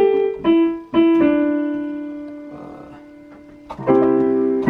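Yamaha digital piano: three single notes stepping down in pitch, the last held and slowly fading for over two seconds, then a full chord struck about four seconds in.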